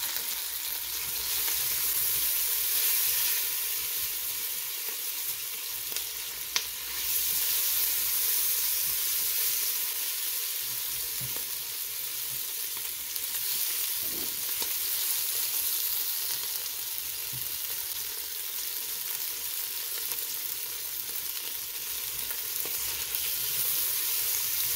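Onion wedges sizzling as they sauté in a stainless steel pot, being cooked down until translucent. They are stirred now and then with a silicone spatula, with one sharp click about six and a half seconds in.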